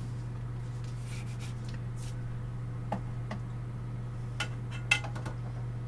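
A few light clinks and taps of kitchenware while biscuits are being set into a baking pan, the sharpest about five seconds in, over a steady low hum.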